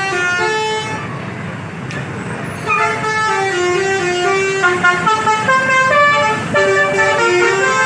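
Bus telolet horn, a musical multi-tone horn, playing a stepped melody: a short phrase ending about a second in, then after a brief break a longer tune from about three seconds in to the end.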